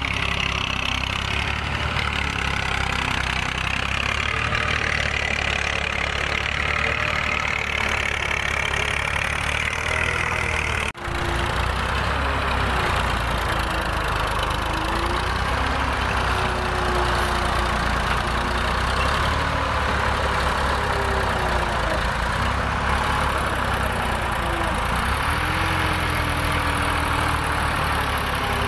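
Farm tractor's diesel engine running under load as it hauls a loaded trolley through soft sand, its pitch rising and falling as the revs change. The sound drops out for an instant about eleven seconds in.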